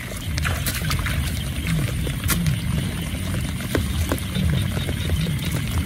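Frogs croaking in a low, repeated chorus over a steady low rumble, with a few light clicks and knocks.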